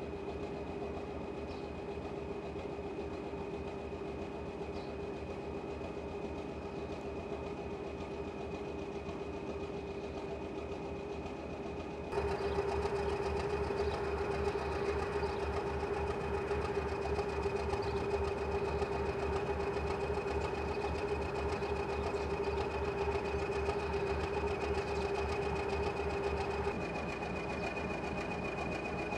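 Class 205 'Thumper' diesel-electric multiple unit idling: its four-cylinder English Electric diesel engine gives a steady, even, rhythmic thumping with a constant whine over it. It gets louder about twelve seconds in.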